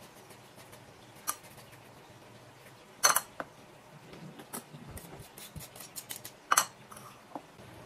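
A metal zesting grater knocking against a ceramic bowl: a light knock, then two loud sharp knocks about three and a half seconds apart, with lighter clinks in between, as orange zest is knocked off into the bowl.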